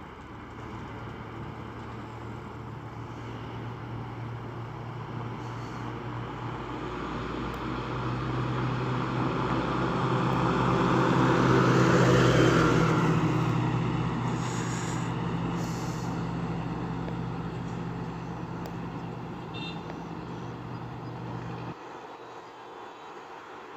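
A loaded six-wheel diesel goods truck approaches and passes close by, its engine running steadily. It is loudest about halfway through as it goes past with tyre and wind noise, then fades as it pulls away. The sound cuts off abruptly near the end.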